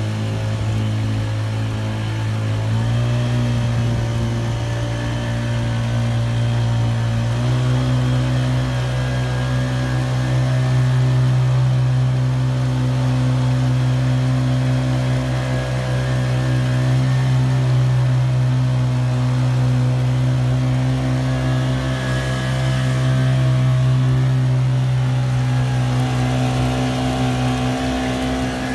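Honda GX35 four-stroke single-cylinder outboard engine being wound up slowly: its pitch steps up twice in the first eight seconds or so, then holds steady at a high run.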